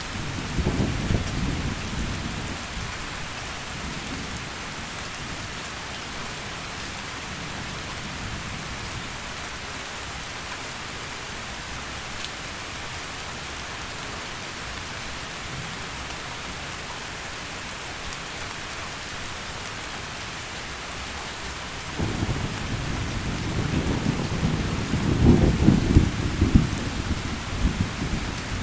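Heavy rain falling steadily in a thunderstorm. A roll of thunder dies away over the first couple of seconds, and another rumble of thunder comes in suddenly near the end, growing to its loudest a few seconds later.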